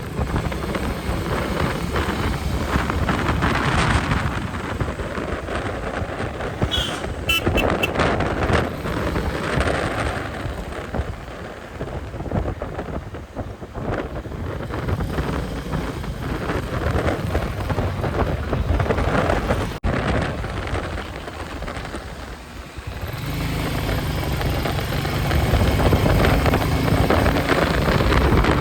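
Royal Enfield Meteor 350's single-cylinder engine and exhaust running at cruising speed, with wind rushing over the microphone. The engine gets louder near the end as the bike pulls harder.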